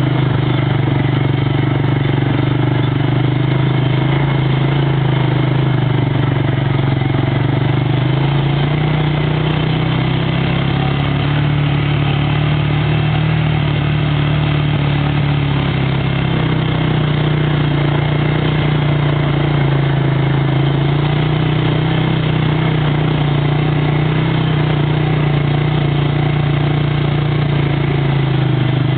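ATV engine running at low speed while driving along a dirt track, a steady drone whose pitch rises and falls slightly a few times.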